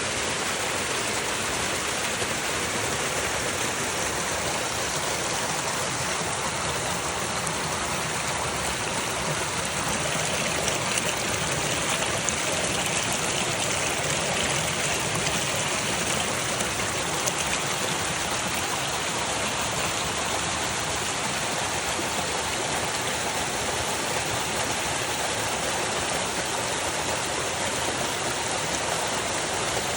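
A forest stream running over rocks: a steady rushing, splashing water sound with no break.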